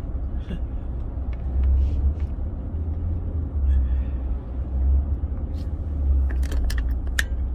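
Steady low rumble of a car driving, heard from inside the cabin, with a few sharp clicks near the end.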